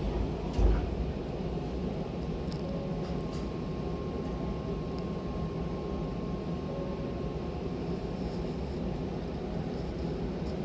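Hankyu commuter train heard from inside the car: a single thump just under a second in, then a steady low rumble with a faint high steady tone that fades away about two-thirds of the way through.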